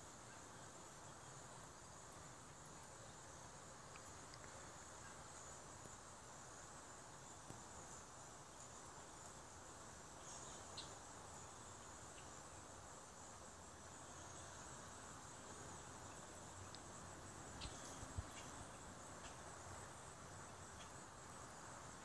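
Near-silent backyard ambience: a faint, steady high insect drone, with a few brief high chirps.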